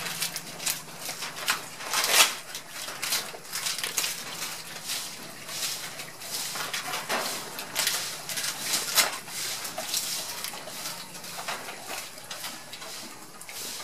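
Piglets and their sow tearing and chewing banana leaves: a fast, irregular run of crunching, ripping and leaf rustling.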